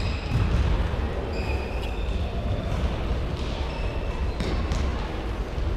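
Footballs being kicked and bouncing on an indoor sports-hall floor during a passing drill, amid a steady murmur of the crowd in the reverberant hall. Short high squeaks come and go every second or so.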